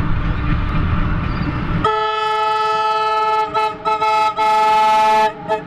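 Train horn sounding close by as the train passes: a long blast of about a second and a half, two short toots, another long blast, then two quick toots near the end. Before it begins, the low rumble of the approaching train.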